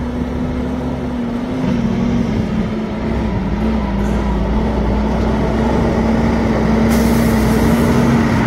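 International dump truck's diesel engine running with a steady note as the truck drives up, growing louder as it approaches. A hiss starts near the end.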